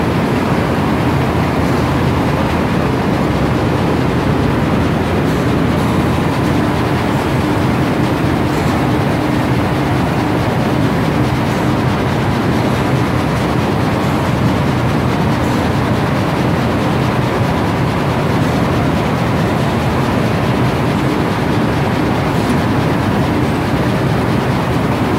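Sugar grasshopper conveyor running, its vibrating tray, driven by a wooden connecting rod, shaking sugar along with a steady, continuous mechanical rattle.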